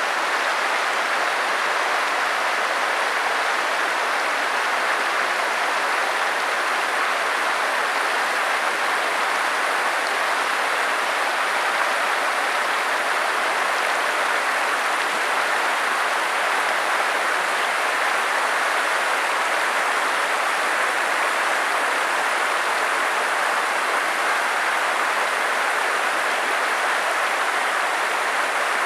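Creek water rushing, a steady even hiss that does not change.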